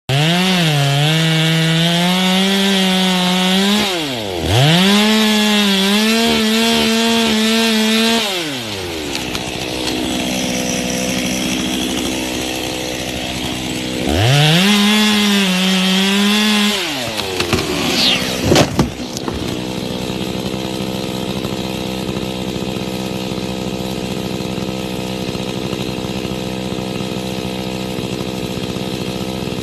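Two-stroke chainsaw cutting at full throttle, dipping briefly about four seconds in, then dropping to a lower run, revving up to cut again and dropping back. A burst of sharp cracks and knocks comes a little after halfway, after which the saw runs on steadily at low revs.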